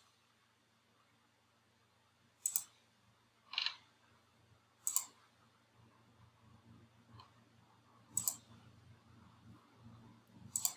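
A computer mouse clicking sparsely, about five separate clicks a second or more apart, two of them quick double-clicks.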